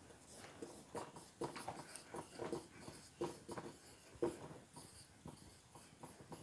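Dry-erase marker writing by hand on a whiteboard: a string of short, faint strokes, irregular in timing.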